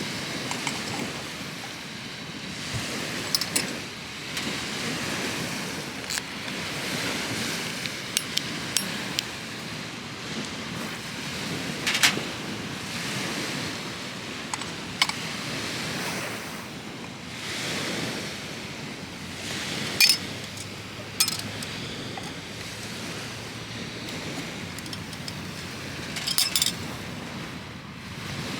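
Steady outdoor rushing noise that swells and eases every few seconds, with scattered sharp clicks and clinks, the loudest about twelve, twenty and twenty-six seconds in.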